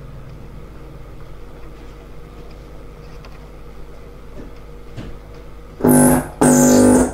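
TOA PA amplifier and its speaker giving a steady low hum, then two short, loud buzzes near the end, each under half a second, as its circuit is probed by hand while the dead channel 1 is traced.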